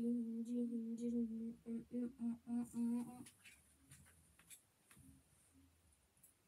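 A boy humming one steady, level note, which breaks into short pulses after about a second and a half and stops a little after three seconds. Faint ticks and rustling follow.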